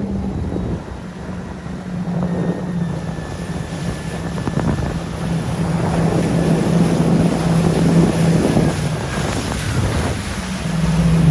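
Jet ski engine running steadily at speed, a constant drone, with wind buffeting the microphone and water splashing.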